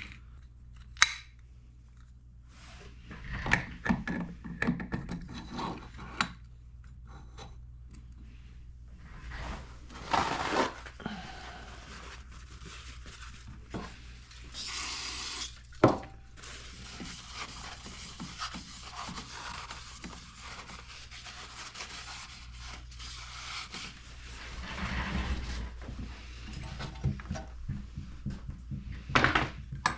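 Small metal engine parts being handled and fitted together by hand: clinks, rubbing and scraping. There is a sharp knock about a second in and another around sixteen seconds.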